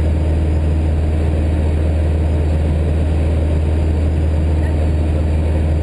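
Socata TB9's four-cylinder piston engine and propeller droning steadily in level flight, heard from inside the cockpit.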